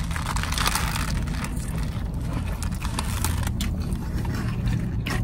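Close-up eating sounds: chewing, with irregular sharp crunches and clicks, over a steady low hum.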